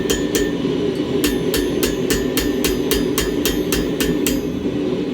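Hand hammer striking a steel bar on the flat of an anvil, bending the hook end back, with each blow ringing. Two blows, a pause of under a second, then a steady run of about four blows a second that stops about four seconds in. A steady roar runs underneath.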